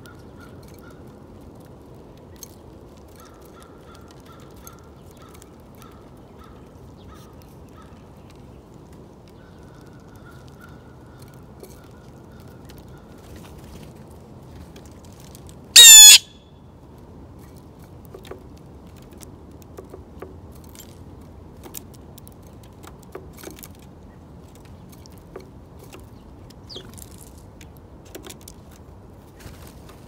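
A single loud, harsh bird call, very close, about halfway through, over a steady low background rumble. Scattered faint ticks and taps follow.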